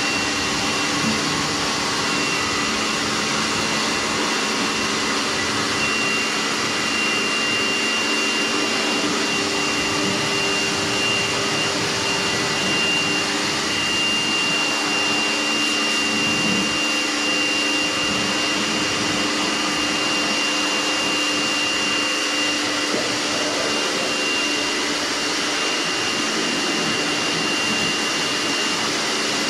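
Kärcher electric pressure washer running steadily as it rinses soap off a motorcycle: the motor and pump give a steady high whine over the hiss of the water jet.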